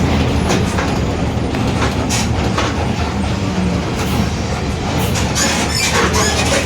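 Mercedes-Benz OF-1721 BlueTec 5 diesel city bus running under way: a steady low engine and drivetrain drone with a growling differential, and irregular rattles and clatters over it.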